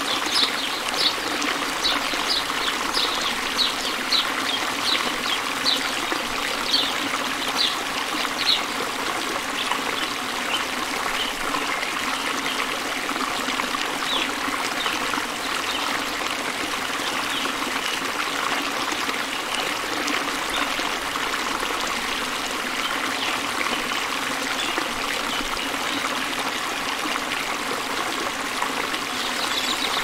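Steady trickling and flowing of a small stream. A run of short, high-pitched ticks comes about twice a second over the first nine seconds or so, then fades.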